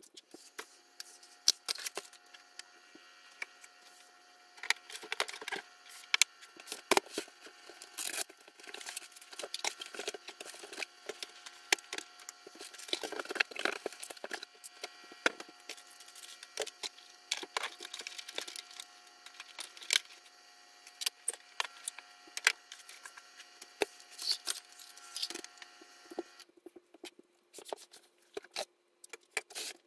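Clatter of boxes and cleaning tools being moved and handled while tidying a room: many short knocks, bumps and scrapes at irregular intervals, over a faint steady hum that cuts off near the end.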